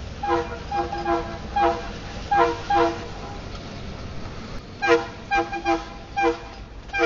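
Locomotive air horn sounding a rapid string of short toots, about six in a first burst and, after a pause of a couple of seconds, about six more, over the steady low rumble of the EMD GP38-2 diesel and its train rolling past.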